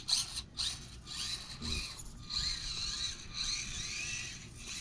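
Small electric RC truck motor and gears whirring in short bursts, then running longer, its pitch rising and falling with the throttle.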